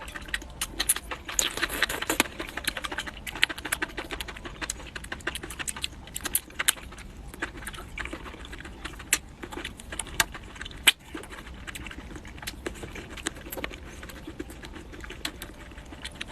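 Close-miked eating sounds: a dense run of crunchy clicks and crackles from chewing and biting food, busiest in the first few seconds, with one sharper click about eleven seconds in.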